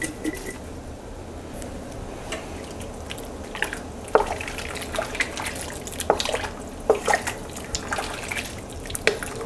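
Wooden spoon stirring chicken soup in a stainless steel stockpot: broth sloshing and dripping, with scattered light knocks of the spoon against the pot.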